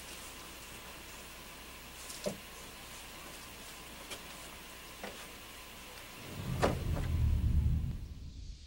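Wooden plank door being handled: a few faint knocks, then from about six seconds in a low scraping rumble with two sharper knocks as the door is dragged across the floor.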